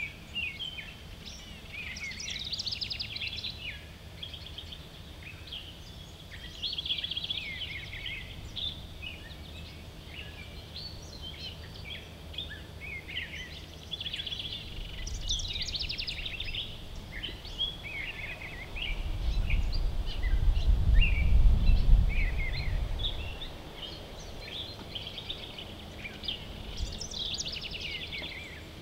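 Several songbirds singing and calling in short chirping phrases over a low steady background. About twenty seconds in, a low rumble swells for a few seconds and fades, the loudest sound here.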